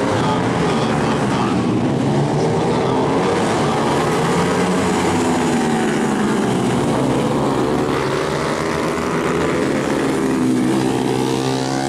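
Several tuned 150cc four-stroke supermoto motorcycle engines racing, their revs rising and falling through the corners and climbing again near the end.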